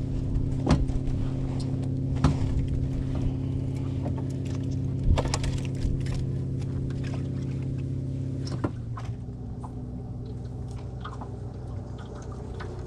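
A steady, low, pitched motor hum with a few sharp knocks and clicks over it; after a knock about two-thirds through, the hum drops in level.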